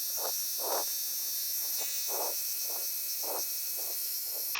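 Electric tyre inflator running with a steady high, whining buzz, inflating a car tyre. Eight short, uneven pulses come through it.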